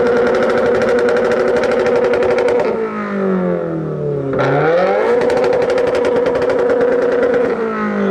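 2017 Subaru WRX's turbocharged flat-four engine with its aftermarket exhaust, revved hard twice and held at a steady high rpm each time for about three seconds. Between the two pulls it drops back toward idle, about three seconds in, and it falls away again near the end.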